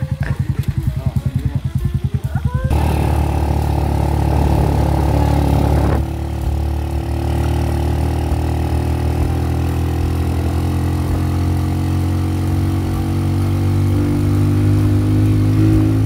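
Motorcycle engine: first a fast, pulsing putter up close, then, after an abrupt change, a steady engine drone while riding, creeping slightly up in pitch near the end.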